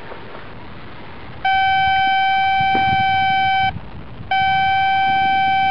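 Metal detector sounding a steady high beep twice, each lasting about two seconds and cutting off abruptly: the target tone of buried metal under the search coil.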